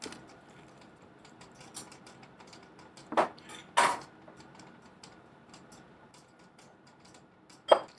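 Scattered light clicks and taps of small hard objects, with two louder short clinks a little after three seconds and another near the end.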